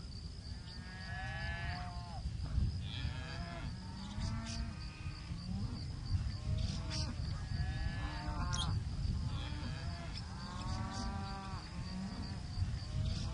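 Cattle mooing and bawling: about eight drawn-out calls, some overlapping, over a steady low rumble.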